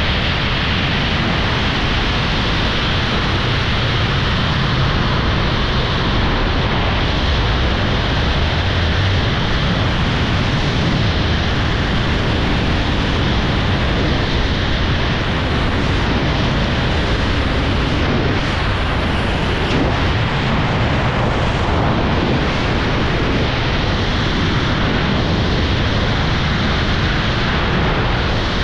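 Wind rushing over the microphone of a camera carried in wingsuit flight at high airspeed: a loud, steady rush with no breaks.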